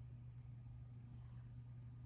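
Near silence: room tone with a steady low hum and one faint soft rustle about a second in; no typing is heard.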